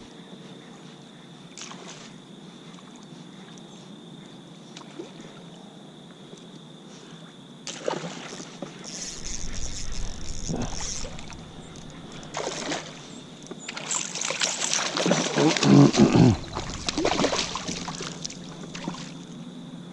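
Water splashing and sloshing around a fishing kayak, quiet at first, then a run of louder, uneven splashes and knocks from about eight seconds in, loudest around fifteen seconds.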